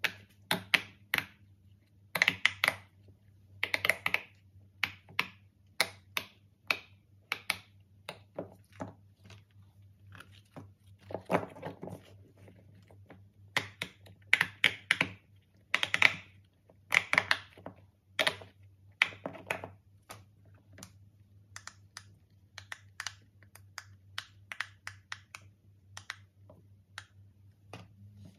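Silicone pop-it fidget toys being pressed and handled: quick runs of soft popping clicks from the bubbles, mixed with taps and light knocks as the toys are picked up and set down. The clicking is busiest in the first few seconds and around the middle, and sparser near the end.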